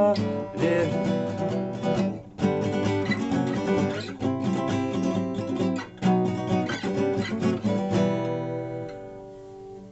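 Acoustic guitar strumming chords, then a last chord about eight seconds in that is left to ring and fade away.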